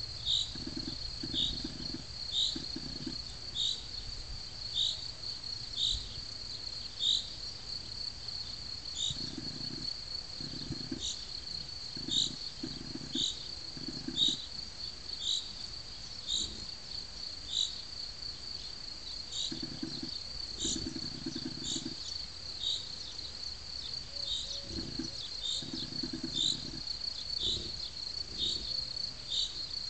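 Crickets trilling steadily, with sharper chirps repeating about once a second. Soft low sounds come and go in a few stretches.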